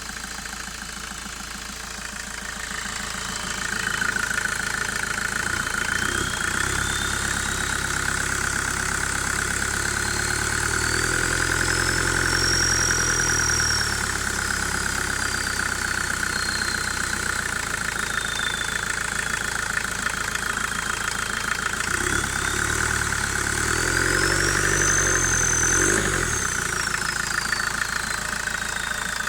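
1992 VW Passat B3's 1.9 turbodiesel engine running, its speed rising and falling back twice. The original turbocharger's whistle climbs in pitch with each rise and sinks again.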